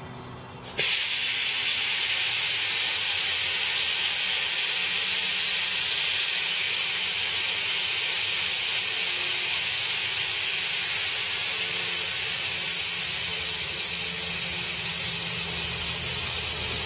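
Compressed air hissing out of the Schrader valve that feeds a 1972 Chevy C10's front air-ride bags, as the bags are deflated and the front end lowers. One steady hiss that starts suddenly about a second in.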